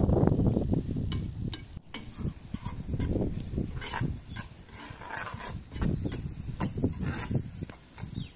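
A metal spoon stirring and scraping food in a cooking pot, with short clicks of the spoon against the pot, over an uneven low rumble.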